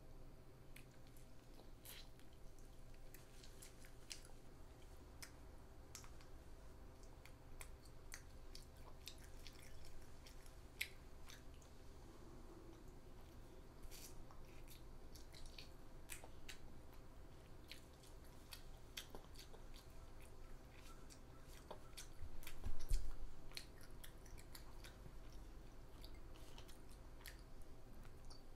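A child chewing and biting banh xeo, the crispy Vietnamese rice-flour crepe, with scattered small clicks and crunches; one louder low thump comes about three quarters of the way through.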